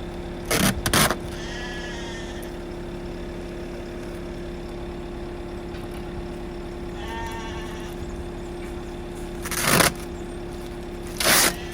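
A steady mechanical hum with a few loud knocks, two of them about a second in and two near the end. Short bleating calls come twice, about two seconds in and again around seven seconds.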